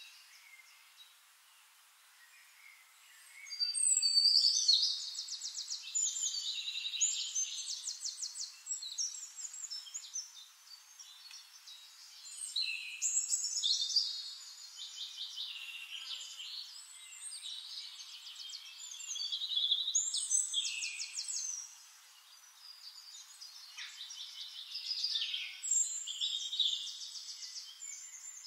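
Forest songbirds singing: about four bouts of fast, rapidly repeated warbling song over a faint hiss, the first starting about three and a half seconds in.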